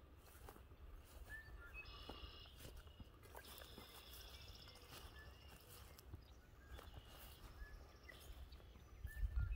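Faint outdoor bird calls: several high trilling phrases about a second long and short chirps, over a steady low rumble.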